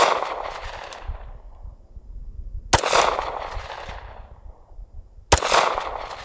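Sig Sauer P226 Legion SAO 9mm pistol firing three slow aimed shots, one as it begins and then two more about two and a half seconds apart. Each shot trails off in a long echo lasting about a second.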